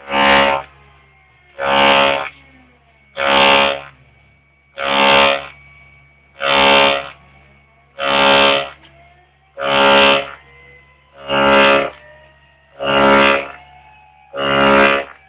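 CNC mill cutting aluminium in repeated passes: a buzzing, steady-pitched tone about every second and a half as the cutter bites into the metal. Faint rising and falling motor whines and a low hum run between the cuts.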